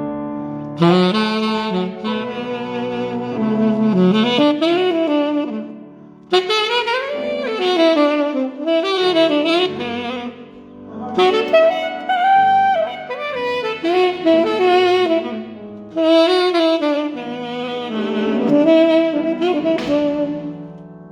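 Saxophone playing a melody in long phrases with sliding, bending notes, with short breaks between phrases, over steady held notes underneath.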